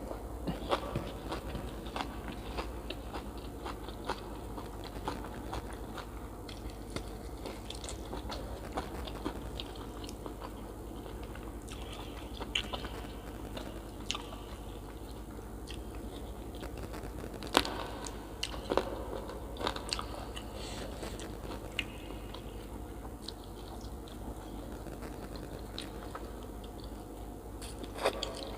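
Close-miked eating: a person chewing and crunching mouthfuls of food, with scattered sharp crunches and mouth clicks, a few louder ones in the second half.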